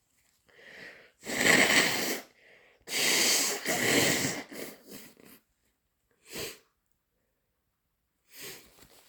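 A person with a head cold sneezing: a breath drawn in, then loud sneezes about a second and a half and three to four seconds in, trailing off, with two shorter bursts of breath later.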